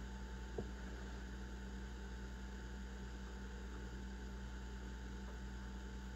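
Steady low mains hum, with one faint click about half a second in.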